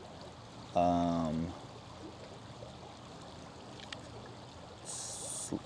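Stream water flowing steadily, with a man's brief hummed 'mm' about a second in and a short high hiss near the end.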